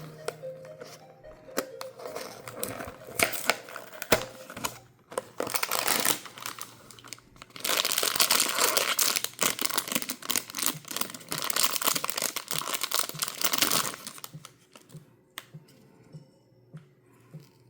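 Blind-box packaging being opened by hand: scattered clicks and rustles, then a long stretch of steady crinkling and tearing of the wrapping. It stops about three-quarters of the way through, leaving faint background music.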